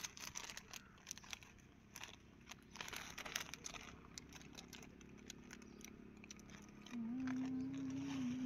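Faint crinkling of a plastic snack packet as it is handled and tipped into a palm, with small crunches of snacking. Near the end a louder steady hum sets in and lasts about a second and a half.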